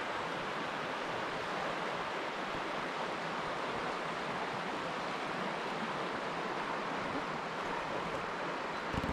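River water flowing past the bank, a steady even noise that does not change, with one brief knock near the end.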